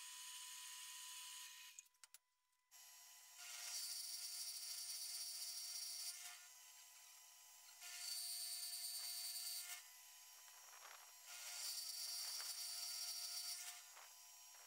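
A metal-cutting band saw runs steadily for about two seconds. Then, after a short break, an end mill in a mill-drill cuts a slot in rectangular steel tube: a steady spindle whine, with a hissing cut that swells three times for about two seconds each as the cutter makes its passes.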